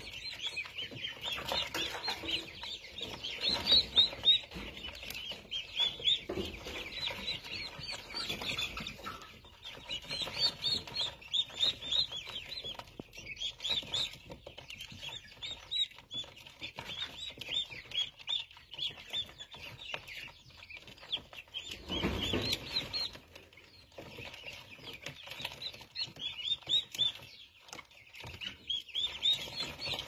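A brood of young chicks peeping without pause, many short high cheeps overlapping. A brief muffled bump comes about two-thirds of the way through.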